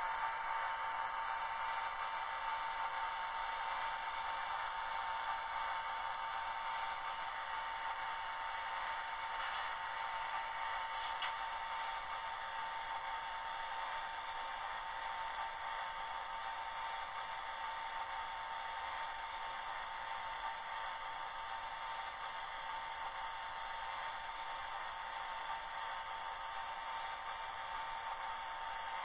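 Sound decoder of an HO-scale FS D443 diesel locomotive model playing a steady diesel engine sound through the model's tiny speaker: a thin, tinny hum with a constant high whine. Two faint ticks come about a second and a half apart, about ten seconds in.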